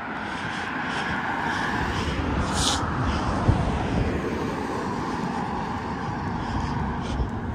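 Pickup truck engine and tyres as it drives slowly closer, the sound building over the first couple of seconds and then holding steady. A brief high hiss comes about two and a half seconds in.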